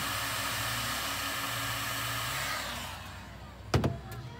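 Heat gun blowing steadily while shrinking glue-lined heat-shrink ring terminals, then switched off about three-quarters through, its blowing fading away. A single sharp knock follows just after and is the loudest sound.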